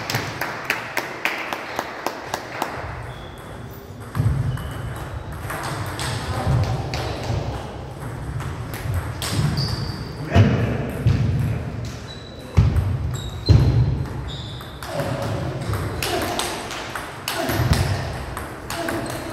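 Table tennis rally: a celluloid ball clicking off bats and table in quick succession for the first couple of seconds, then scattered ball clicks and dull thuds on the wooden gym floor, with voices in the hall.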